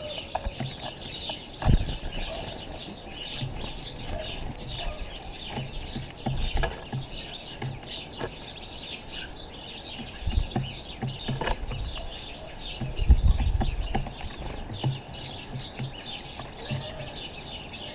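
Continual chatter of small birds chirping, with a few dull low thumps here and there, the loudest about 13 seconds in.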